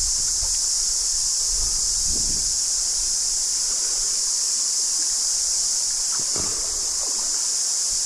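Cicadas chorusing: a loud, steady, high-pitched shrill drone that doesn't let up.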